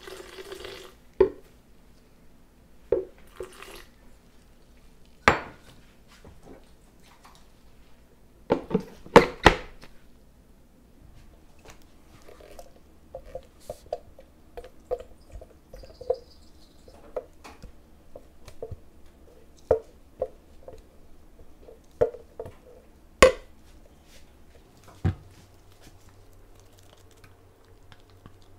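Kitchen utensils knocking and clinking against bowls and a pot, in scattered sharp strikes with a cluster of loud knocks about a third of the way in. Through the middle comes a run of soft, quick taps, several a second.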